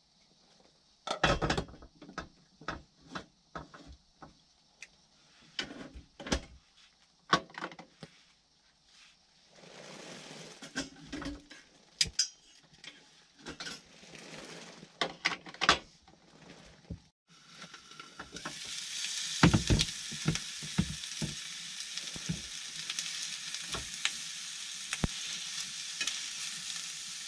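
Knocks and clatter of cookware being handled. About two thirds of the way in, whole horse mackerel start to sizzle in a hot frying pan, a steady, dense sizzle with a few knocks of the pan.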